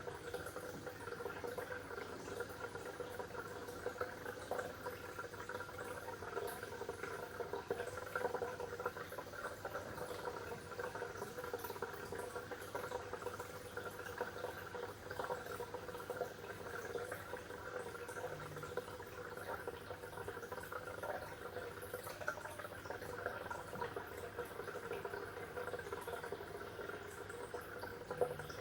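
Water bubbling steadily, with a low steady hum underneath.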